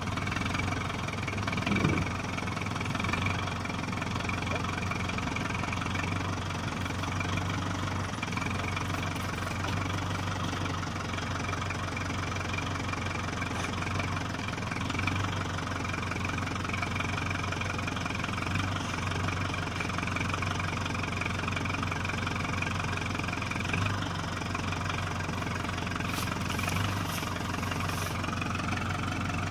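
Kubota MU4501 tractor's four-cylinder diesel engine running steadily while the tractor pulls a seed drill across the field.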